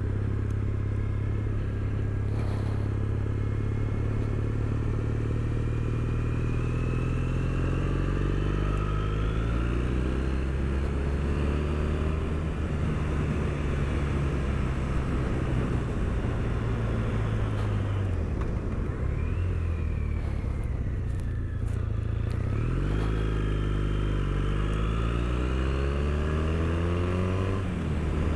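Triumph Bonneville's parallel-twin engine under way: the revs climb through several gear changes, settle to a steady cruise, fall away about two-thirds through, then climb again through quick upshifts near the end.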